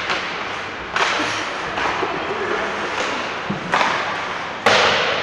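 Ice hockey play in a rink: three sharp knocks about one, nearly four and nearly five seconds in, the last the loudest, each ringing out in the large hall.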